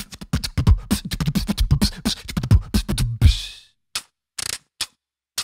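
Vocal beatboxing: a fast run of mouth-made clicks and kick-drum thumps with deep bass for about three and a half seconds, followed by a few scattered short clicks.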